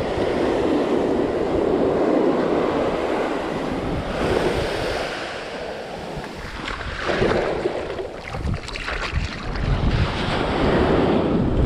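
Small ocean surf breaking and washing up a sandy beach, swelling and easing every few seconds, with wind buffeting the microphone.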